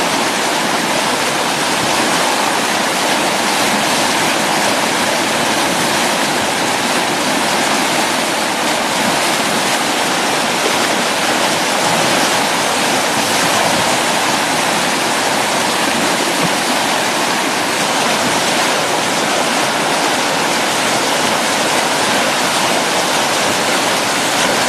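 Loud, steady rush of a whitewater river rapid: churning river water.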